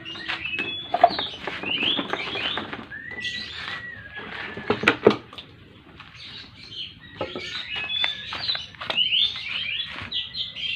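Small birds chirping steadily with quick, repeated sliding notes, with a few sharp knocks, the loudest about a second in and around five seconds in.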